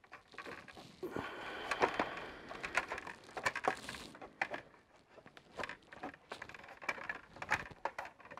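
Plastic parts of the Hasbro Endor Bunker playset being handled and pressed together: a scraping rustle as the roof section is worked onto the bunker base, then scattered clicks and taps as it seats.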